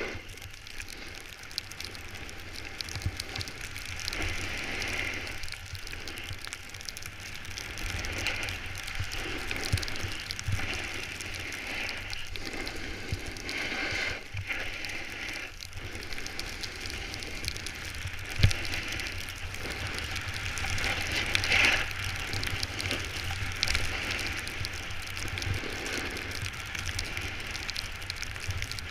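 Snowboard sliding and carving over packed snow: a continuous scraping hiss that swells and fades with each turn, over a low rumble of wind on the microphone. A single sharp knock comes about two-thirds of the way through.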